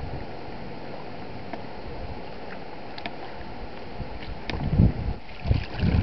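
Shallow seawater lapping and sloshing over rocks at the shoreline, a steady wash with a few light ticks. Low rumbling surges come in over the last second and a half and are the loudest part.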